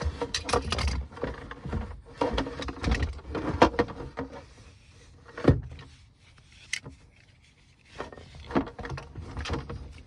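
Irregular rubbing, clinking and knocks of hands working seatbelt hardware and its buckle at a car seat. A sharper knock comes about halfway through, followed by a quieter spell before the handling picks up again.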